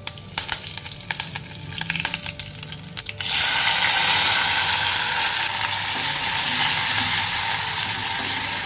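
Curry leaves crackling and spitting in hot olive oil in a steel kadai. About three seconds in, a sudden loud, steady sizzle starts as peas, corn and capsicum go into the hot oil.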